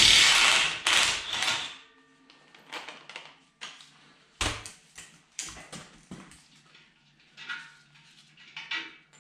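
Cordless DeWalt impact wrench hammering for about a second and a half as it runs a nut off a bolt on a disk harrow's bearing support. Then scattered metallic clinks and clanks of the loosened parts being handled, with one heavier clank a little past the middle.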